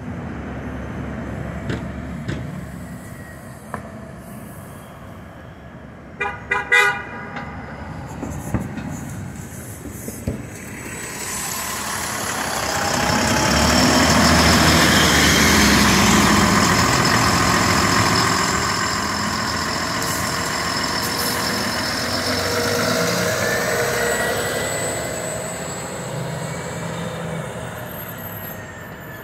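A 2021 Nova Bus LFS HEV hybrid-electric city bus passes close by, its drive running with a rising whine; it is loudest about halfway through and fades near the end. About six seconds in, a vehicle horn gives a few short toots over the street traffic.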